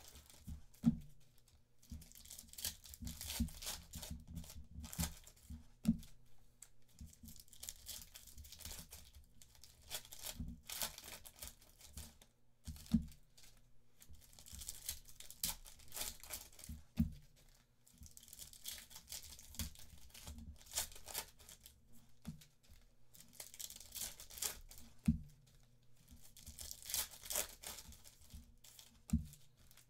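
Foil trading-card pack wrappers being torn open and crinkled by hand, in repeated bursts of tearing and rustling, with occasional sharp taps.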